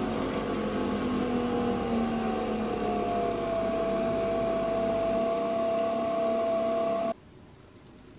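Nespresso Vertuo coffee machine brewing, a steady whir from the spinning capsule as coffee pours into the cup. Its tone slides down slightly and then holds, and the whir cuts off suddenly about seven seconds in.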